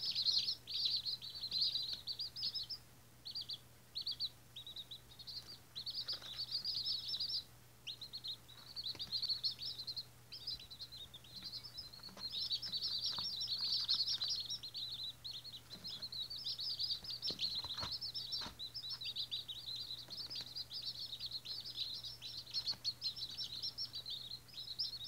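A group of day-old Australorp chicks peeping, many quick high peeps overlapping almost without let-up, broken by a few short pauses. A faint steady hum runs underneath.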